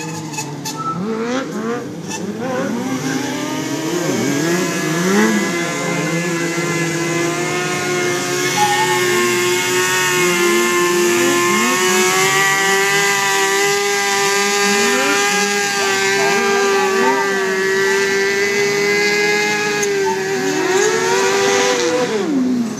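Sport-bike engine revved hard during a burnout: the revs rise and fall a few times, then are held steady at a high pitch for about fifteen seconds while the rear tyre spins on the asphalt, and drop off sharply near the end.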